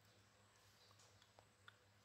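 Near silence, with faint irregular small clicks, a few a second, from a baby monkey sucking milk from a bottle teat.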